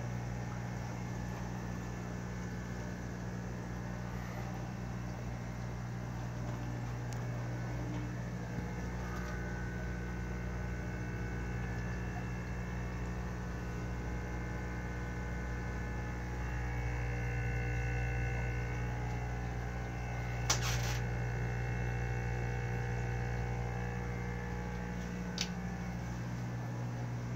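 Steady low electrical hum, with two brief clicks: one about two-thirds of the way through and one near the end.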